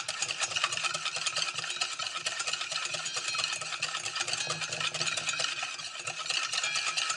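Wire whisk beating a thick paprika-mustard paste in a stainless steel mixing bowl, a fast, continuous scraping and clicking of the wires against the metal. Olive oil is being drizzled in to emulsify it into a dressing. A faint steady low hum sits underneath.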